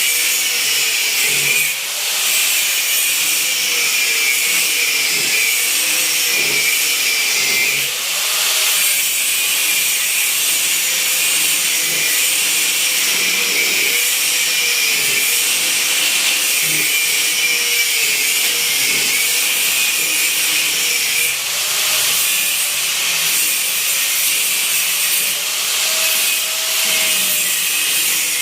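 Handheld electric power tool running continuously against a surface, its motor pitch dipping and recovering again and again as it is pressed and eased.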